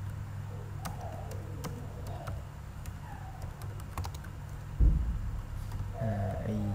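Typing on a computer keyboard: scattered, irregular key clicks. A single dull thump, the loudest sound, comes nearly five seconds in.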